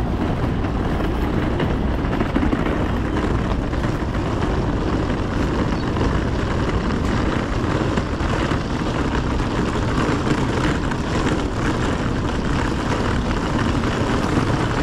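Steady city street ambience: a continuous low rumble of road traffic with a hiss over it.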